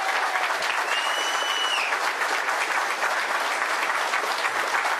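A room of people applauding, steady dense clapping throughout.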